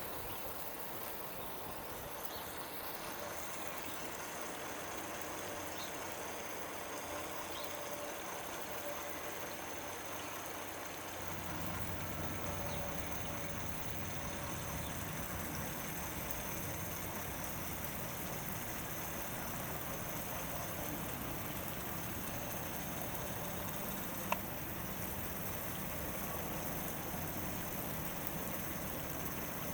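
1943 Sunbeam Rain King K-20 travelling sprinkler running: a steady hiss of water spray, joined about eleven seconds in by a lower mechanical rumble, with one sharp click about 24 seconds in. The uploader says the drive audibly slips in and out of gear on this test and the sprinkler has no shut-off.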